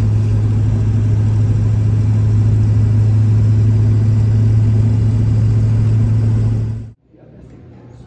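Cabin noise inside a moving vehicle at highway speed: a steady low engine drone with road and wind noise. It cuts off suddenly about seven seconds in, giving way to much quieter room ambience.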